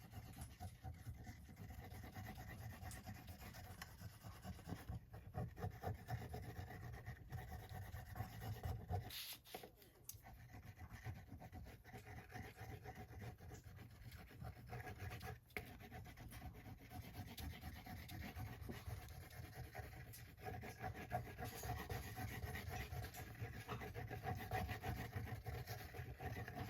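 Faint rubbing and scratching of paper and card being handled on a craft table, over a low steady room hum.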